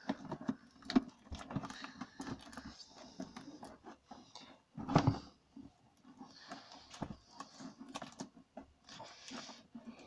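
Scattered clicks, knocks and rustles of hands working on a washing machine's plastic tub and suspension rod, with one louder thump about five seconds in.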